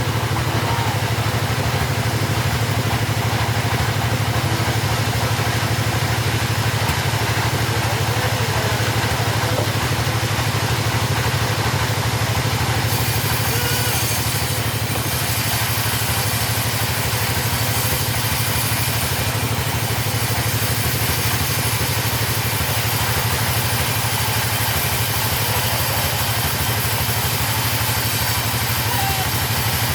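A chainsaw engine running steadily at an even speed, without revving up or down.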